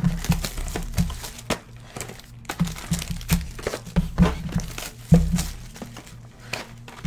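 Plastic wrap and foil trading-card packs crinkling irregularly as they are handled.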